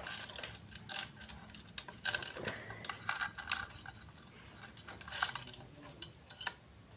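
Scattered light metallic clicks and rattles of a motorcycle cam chain and small engine parts being handled by hand inside the opened side of a Honda Supra engine, around the oil pump gear.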